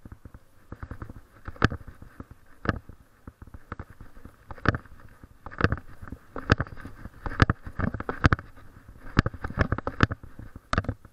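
Handling noise from a camera worn by a walker: a sharp knock about once a second in time with the steps, with crackling and rustling between. The knocks come closer together near the end.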